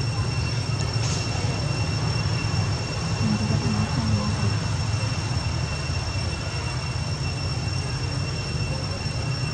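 Steady low rumble with a constant high-pitched whine over it, unchanging throughout.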